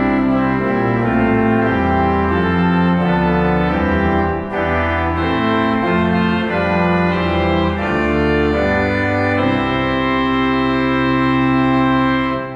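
Organ playing a slow passage of sustained full chords that change every second or so, closing on a long held final chord that cuts off near the end.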